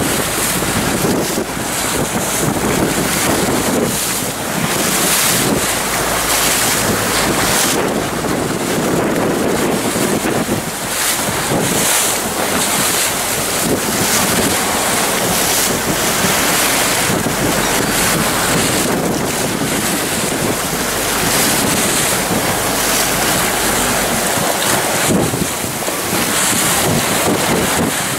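Wind buffeting the microphone over the wash of waves and spray around a boat at sea, with a low rumble underneath that drops away near the end.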